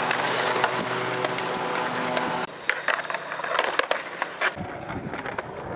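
Skateboard on concrete: wheels rolling and scraping, with sharp clacks and knocks of the board. The loud, dense stretch cuts off suddenly about two and a half seconds in, and scattered clacks follow.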